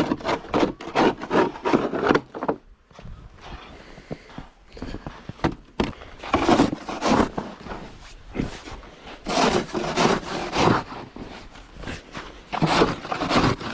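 Snow shovel scraping and pushing through packed snow in repeated strokes, in several bursts with short pauses between.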